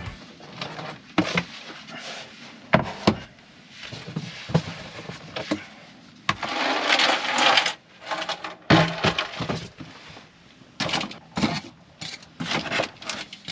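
Cardboard box and packaging being handled and unpacked: scattered knocks and clicks, with a longer stretch of rustling about six seconds in.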